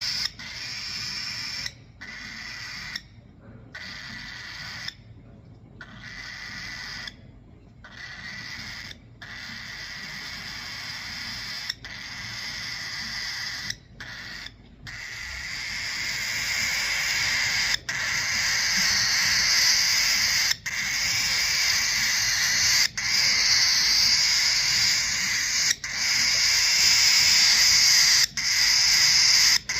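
Baby cockatiel's raspy, hissing begging calls, very noisy after a handfeeding: long unbroken stretches cut by brief pauses, growing louder about halfway through.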